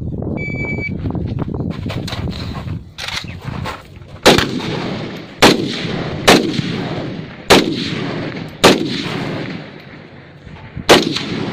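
Electronic shot-timer start beep, then six handgun shots fired at an uneven pace about one to two seconds apart, each trailing off in a short echo.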